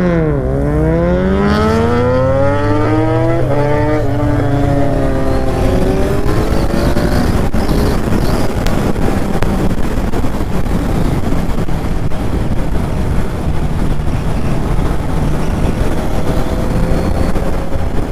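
Sport motorcycle engine accelerating hard through the gears, its pitch climbing steeply with a gear change about three and a half seconds in, then settling into a steady drone under rushing wind and road noise at cruising speed.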